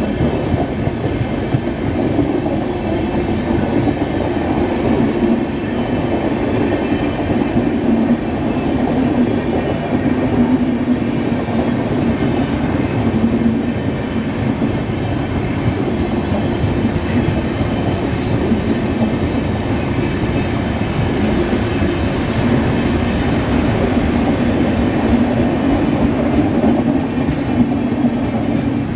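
Passenger train coaches rolling past at speed: a steady rumble of steel wheels on rail with a clickety-clack over the rail joints.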